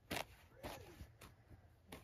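A shovel blade digging into the earth of a grassy bank: one sharp scrape just after the start, then a few softer scrapes and knocks.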